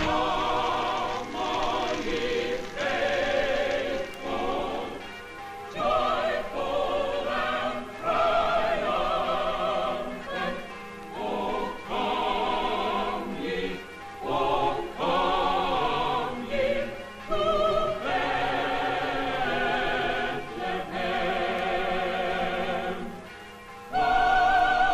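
Choral singing in the film score, with long held notes wavering in vibrato, in phrases of a few seconds separated by short breaks. It is heard on a 1940s narrow-band film soundtrack.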